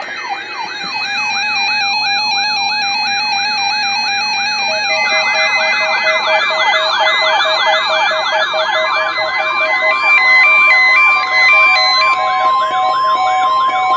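Several weather alert radios sounding their alarms for the weekly NOAA Weather Radio test: a loud siren-like sweep rising and falling about twice a second, joined about five seconds in by a second overlapping sweep and beeping tones, with a steady tone added near the middle.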